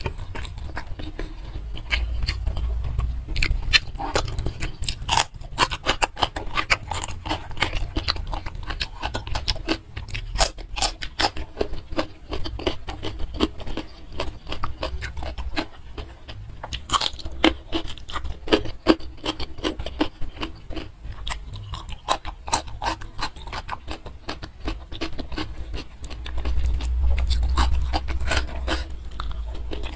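Close-miked eating: steady chewing and crunching with many small wet mouth clicks, and fingers scraping food off a plate.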